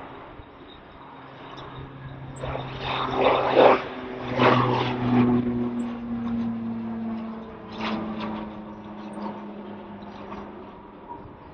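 Beechcraft King Air 350 twin turboprops at takeoff power, passing by on departure. The propeller drone swells to its loudest about four seconds in, drops in pitch as the aircraft passes, then fades away.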